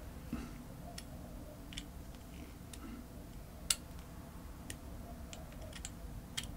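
Hex driver turning and seating the small screws of an RC crawler's differential: faint, scattered clicks and ticks, about one a second, the sharpest near the middle.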